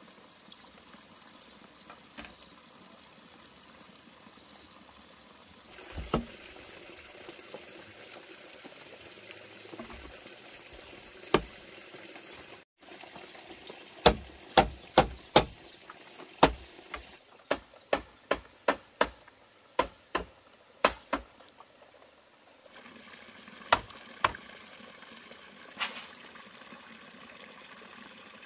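Bamboo roof poles being struck while they are fitted into the frame. There are a few single sharp knocks, then a quick run of about two to three knocks a second for several seconds, then a few more.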